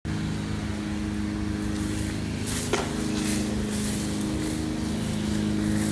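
Small engine of a lawn mower running steadily at a constant speed, with one sharp click a little before the middle.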